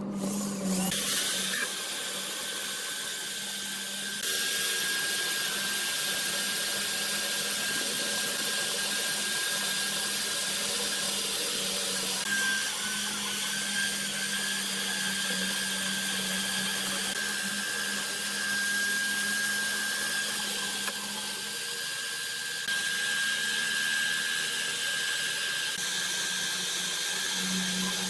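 An electric power tool running steadily with a high whine, starting about a second in, its level stepping up slightly a few times as the work goes on.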